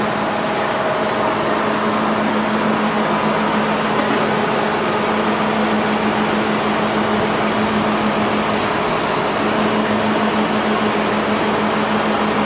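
Steady mechanical drone: a constant low hum over an even rushing noise, unchanging throughout.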